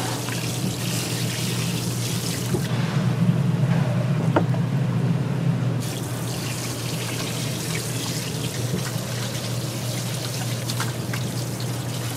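Water trickling and pouring steadily over a constant low hum, with a few faint clinks.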